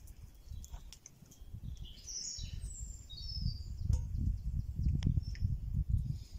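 A bird chirps a short run of high notes about two seconds in, over a low rumble that grows louder after the first few seconds and scattered sharp crackles from the wood fire.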